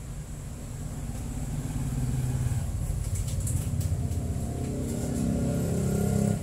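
A motor vehicle's engine running on the street, growing steadily louder over several seconds and then dropping away suddenly near the end.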